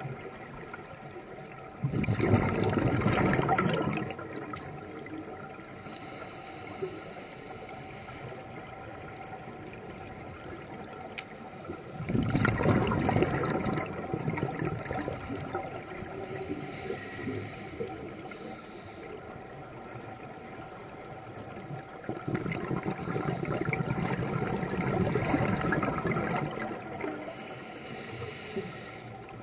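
Scuba diver's breathing heard underwater: three bursts of bubbling exhalation from the regulator, about ten seconds apart, with a steady hiss between them.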